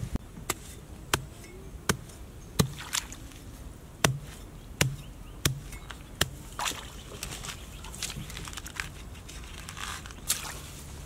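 A knife chopping into grassy turf: sharp strikes, about one every three-quarters of a second, for the first six seconds or so. Then come rougher scraping and tearing sounds as the grass clump is cut loose and pulled up.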